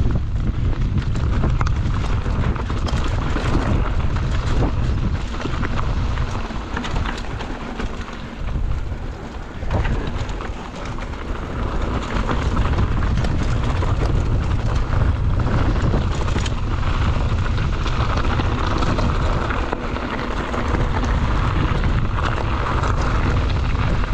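Wind buffeting the microphone over the rumble of mountain-bike tyres on a rough dirt track, with many small clicks and rattles from the bike. It drops back for a few seconds around eight to eleven seconds in.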